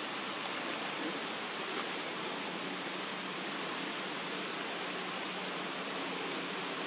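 Steady, even hiss of outdoor background noise with a faint low hum; no distinct animal calls or knocks stand out.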